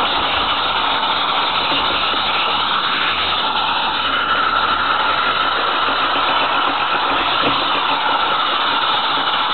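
Steady rumble and rattle of a 16 mm scale garden-railway train running over the track, picked up close by a camera riding on one of the wagons.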